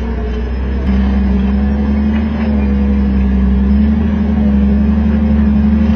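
Off-road vehicle's engine running steadily on the trail. Its note steps up about a second in, then creeps slightly higher.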